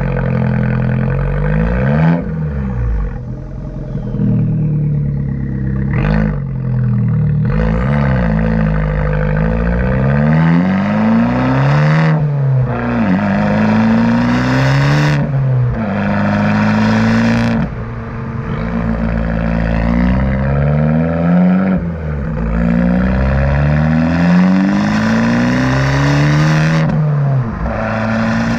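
Abarth 595 Competizione's turbocharged 1.4-litre four-cylinder running through a Monza exhaust with its valve flap wired open, on a Stage 1 map. The engine note climbs in pitch under acceleration and drops back again several times, as at gear changes.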